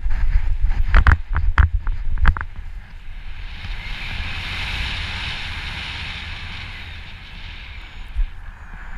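Rushing wind on the microphone of a paraglider pilot's camera during launch, with a series of thumps from the running take-off steps over the first two seconds. The thumps then stop and give way to a steady rush of airflow in free flight.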